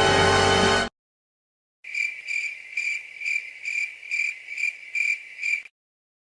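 Cricket chirping sound effect: about nine evenly spaced chirps, roughly two a second, lasting a few seconds. Just before it, a loud sustained musical sound cuts off about a second in, followed by a brief silence.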